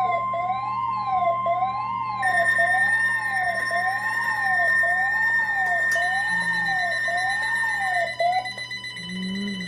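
Emergency alert alarm tones: a siren-like tone sweeping up and down a little over once a second, over a steady high tone. A second, higher steady tone joins about two seconds in, and the alarms stop near the end.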